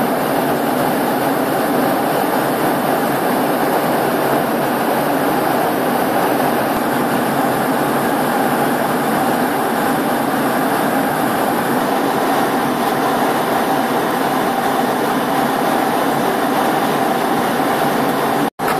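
Steady cabin noise of a Tupolev Tu-204 jet airliner in cruise flight, a constant rush of engine and airflow noise heard inside the passenger cabin. It cuts out for a moment near the end.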